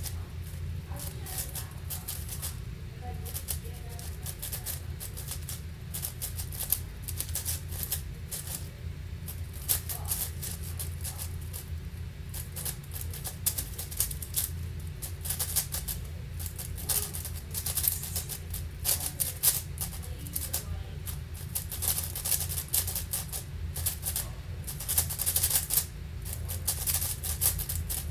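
Angstrom AoFu WRM 7x7 speed cube being turned fast by hand: a dense, unbroken stream of plastic clicking and clacking from the layers as it is solved, coming in quicker bursts near the end.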